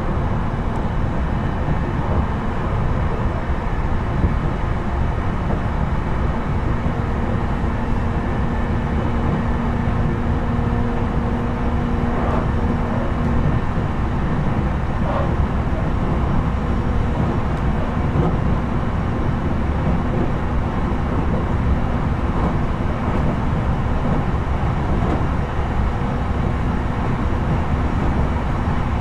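Running sound inside a JR East E721-series electric train car (KuMoHa E721) between stations: a steady rumble of wheels on rail at an even pace, with a faint steady hum that stands out for a few seconds midway.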